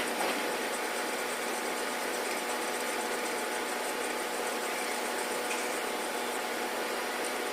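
A small motor running steadily, a constant hum over an even hiss with no change in speed.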